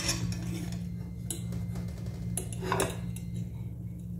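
A metal fork scraping and clinking against a stone-coated non-stick frying pan as it works under the edge of a pancake. There are a few short strokes, the loudest about two and a half seconds in, over a steady low hum.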